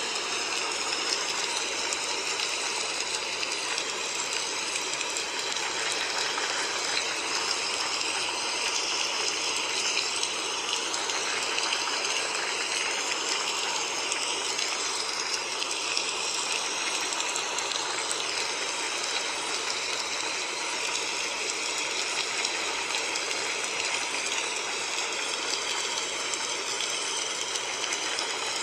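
Steady rushing, hissing noise like running water or rain, with no breaks and no change. It is the masking bed of a subliminal audio track.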